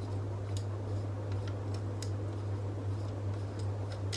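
Light scattered clicks of a plastic phone holder being unscrewed from a selfie-stick tripod, over a steady low hum.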